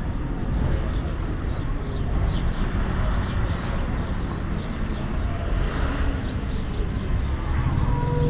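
City street ambience: a steady rumble of road traffic, with the faint sounds of people walking by.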